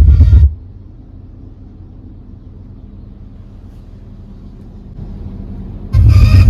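Bass-heavy electronic music playing through a car's sound system cuts off abruptly about half a second in, leaving a low steady rumble, then comes back loud near the end.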